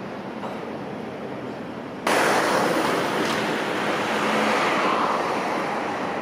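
Road traffic noise on a street: a steady low rumble that jumps suddenly to a loud, broad rush about two seconds in, as of a vehicle going past close by, then slowly fades.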